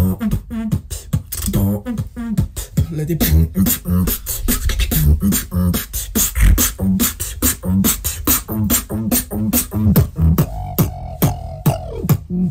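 Solo beatboxing: a fast run of sharp mouth clicks and snares over short hummed bass notes, with a held higher tone over the bass near the end.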